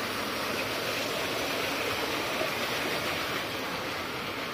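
Steady rushing of water pouring from a spout into a pool, growing slightly fainter near the end.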